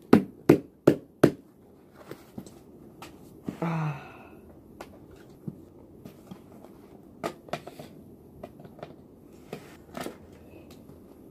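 Hard parts of a taken-apart computer keyboard clicking and tapping as they are handled: four loud sharp clicks in quick succession at the start, then lighter, scattered taps. A short grunt comes about four seconds in.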